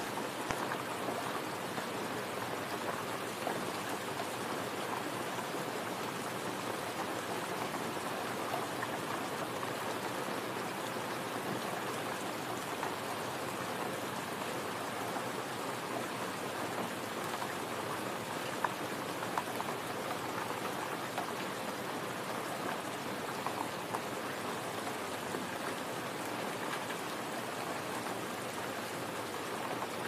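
Steady rain: an even hiss with the odd louder single drop.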